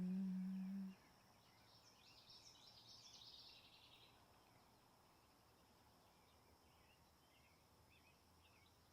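A woman's closed-mouth hum on one steady low note, the exhale of a yoga breathing exercise, cutting off about a second in. After it, faint birdsong chirps, strongest around two to four seconds in.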